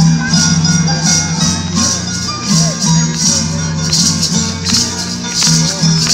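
Hand-held rattles shaken in a steady rhythm, about two shakes a second, by a group of dancers, over traditional music with steady low sustained notes.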